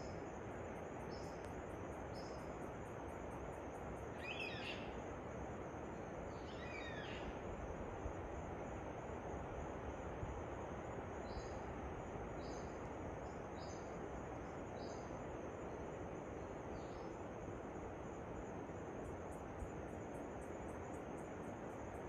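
Waterfall rushing steadily while birds call over it: short high notes repeated about once a second, two longer sweeping calls a few seconds in, and a steady high pulsing buzz.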